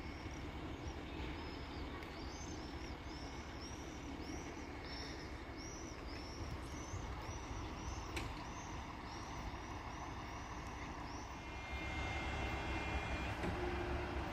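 České dráhy passenger train rolling slowly past on the station tracks: a low, steady rumble, with high chirps repeating about three times a second until about eleven seconds in. About twelve seconds in, the rumble grows louder with a thin whine over it.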